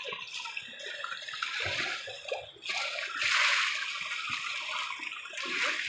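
Water rushing and splashing in an irrigation furrow. It sets in as a steady rush about three seconds in, with a few low knocks before it.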